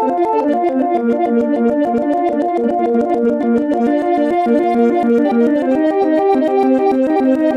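Synthesizer playing a fast, steady stream of short plucked-sounding notes in shifting chord patterns, like a rapid arpeggio.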